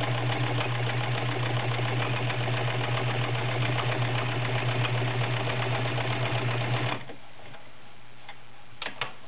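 Kenmore model 1318 sewing machine running steadily, sewing a zigzag stitch with rapid, even needle strokes. It stops abruptly about seven seconds in, followed by a few light clicks near the end.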